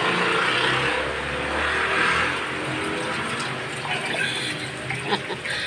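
A wide pan of noodle soup boiling hard, a steady bubbling hiss. A low rumble from the phone being moved sits under it in the first two seconds.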